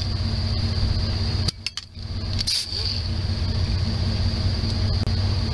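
Small pneumatic cutoff tool running, with a steady high whine, over a steady low hum; the sound dips briefly about one and a half seconds in.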